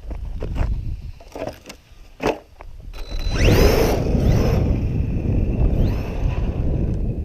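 Redcat Volcano EPX PRO RC truck's brushless motor whining up in pitch several times as it accelerates, with its tyres churning over dirt and gravel, starting about three seconds in. Before that, a few short knocks over a low wind rumble.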